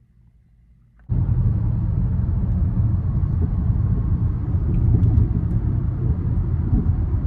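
Near silence for about a second, then a loud, steady low rumble that starts suddenly.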